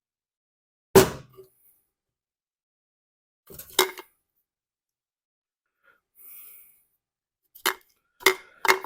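Sharp clicks and knocks of small parts and hand tools being handled and set down on a workbench. The loudest comes about a second in, another a few seconds later, and three close together near the end.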